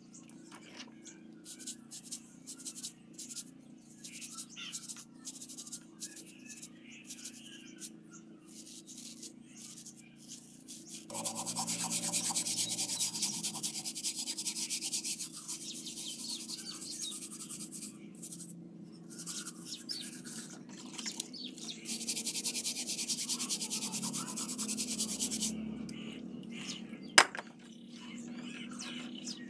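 Stiff bristle brush scrubbing plastic shower fittings in soapy water: short scattered strokes at first, then long runs of fast, steady scrubbing. One sharp knock near the end is the loudest sound.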